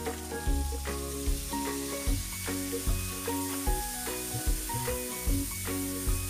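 Shrimp, sliced onions and diced tomatoes sizzling in a wok as they are stirred with a wooden spatula. Background music with a steady beat, a little faster than once a second, is louder than the sizzle.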